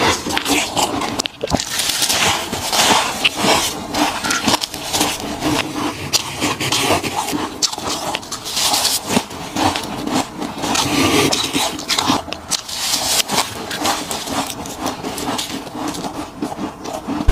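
Soft freezer frost ice being bitten and chewed close to the microphone: a dense, irregular run of crisp crunches and squeaks.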